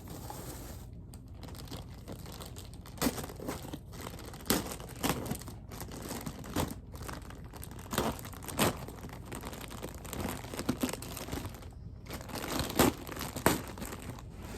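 Plastic figure packaging being handled and unwrapped, crinkling and rustling with irregular sharp crackles.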